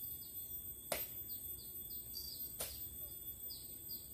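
Riverside insect drone, a steady high buzz, with a bird's repeated short falling chirps over it. Two sharp clicks, the louder about a second in and the other about two and a half seconds in.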